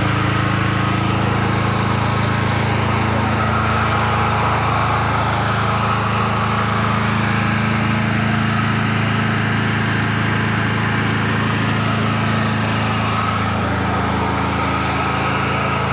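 XLNT 7000 W portable generator's engine running steadily at a constant speed.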